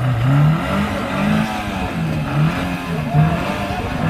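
Maruti Suzuki Gypsy 4x4's engine revving up and down in repeated surges.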